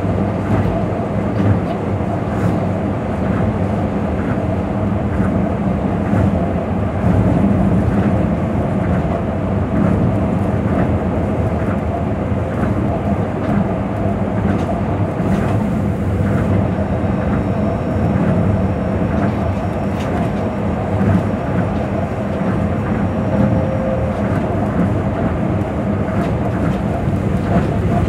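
Cabin running noise of a Tokyo Monorail 2000 series train travelling at steady speed: a continuous rumble from the rubber tyres and traction motors on the track beam, with faint ticks about twice a second.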